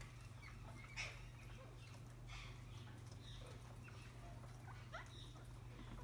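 Faint, scattered short calls from green parakeets, a few brief chirps and squawks, one sharper call about a second in, over a low steady hum.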